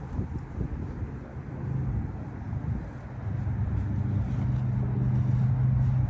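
A steady engine hum that grows louder over the second half, as from an approaching motor vehicle, over wind rumbling on the microphone.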